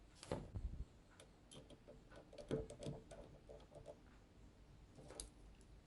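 Faint, scattered small clicks and ticks of a precision screwdriver turning the tiny screws that hold a smartphone's circuit board.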